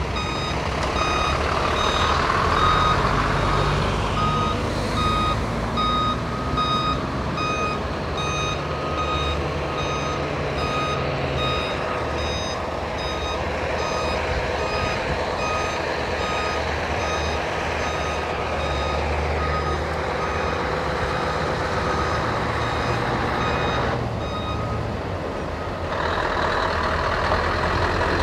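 A heavy truck's reversing alarm beeping in an even, steady series, a little under two beeps a second, over the low running of diesel truck engines. Near the end the beeping stops and a louder truck engine takes over.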